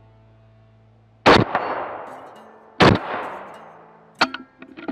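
Two rifle shots from an AR-15 with a Franklin binary trigger, about a second and a half apart, each trailing a long echo, followed near the end by a lighter sharp click.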